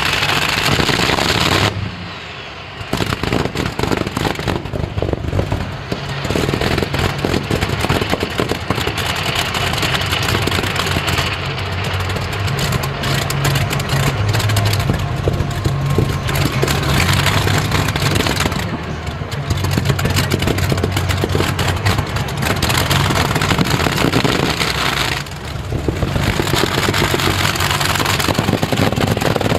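Multi-engine pulling tractor powered by Rolls-Royce aircraft engines, running flat out with a deep, crackling, deafening exhaust banging. Its loudness drops briefly about two seconds in and again near the end.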